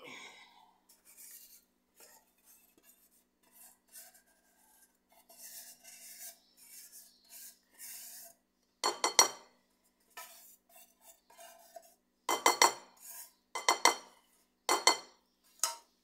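A metal spoon scraping and stirring quietly in a pot, then knocking sharply against its rim: a cluster of ringing knocks about nine seconds in and about five more spaced knocks near the end.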